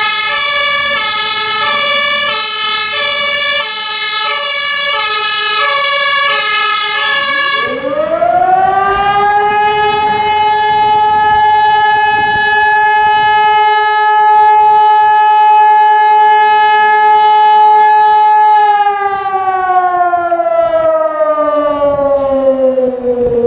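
A fire engine's two-tone siren (Martinhorn) switches between two pitches for the first seven or so seconds. It is replaced by an alarm siren that winds up in pitch, holds one steady tone for about ten seconds, then slowly winds down. This is the siren alarm calling out the volunteer fire brigade.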